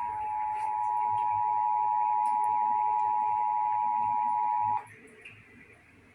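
Emergency Alert System attention signal: the steady two-tone 853 and 960 Hz alarm, sounding the start of a Required Monthly Test. It cuts off sharply nearly five seconds in, leaving faint hiss.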